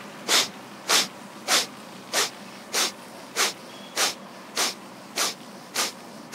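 Kapalbhati breathing: forceful, short exhalations puffed out through the nose, about ten evenly spaced strokes a little under two a second, at the practice's slow basic pace.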